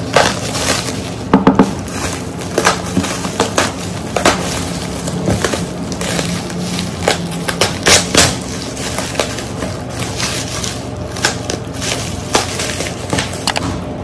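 Bubble wrap and cardboard packing being handled and pulled out of a box: a steady run of irregular sharp crinkles and crackles.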